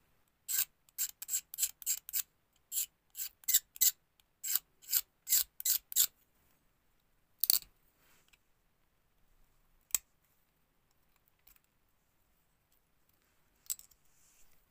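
Small flat blade scraping excess cured epoxy resin off the seam of a cast lipless minnow lure body: quick short strokes, about three or four a second, for the first six seconds, then three single strokes spread apart.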